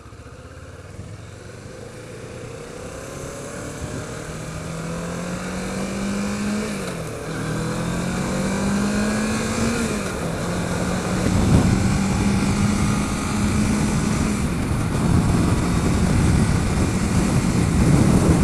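Kawasaki Ninja 650R's parallel-twin engine accelerating away from a stop, its pitch rising through first gear, dropping at an upshift about 7 seconds in, rising again and dropping at a second upshift about 10 seconds in, then holding steady at cruising speed. Wind noise grows louder as speed builds.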